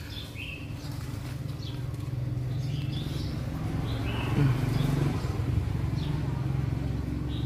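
Low, steady hum of a dwarf honeybee colony clustered on its comb, heard at close range and growing slightly louder, with short bird chirps now and then.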